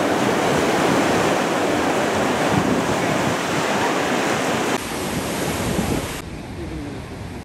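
Ocean surf breaking and washing over rocks, with wind on the microphone. The rushing noise drops in level about five seconds in and drops a little more about a second later.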